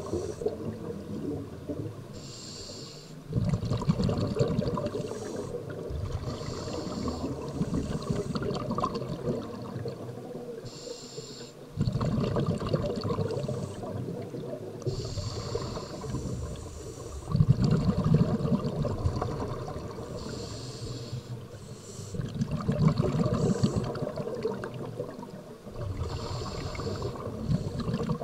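Scuba diver breathing through a regulator underwater: a short hissing inhale followed by a loud, rumbling rush of exhaled bubbles, repeating about every five seconds.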